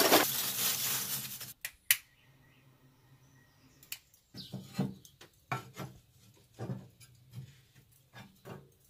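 Lump charcoal poured from a paper sack into a ceramic kamado grill's fire basket: a loud rustling clatter that dies away over the first second and a half. From about four seconds in comes a series of separate knocks and clacks as a ceramic heat deflector is fitted into the grill.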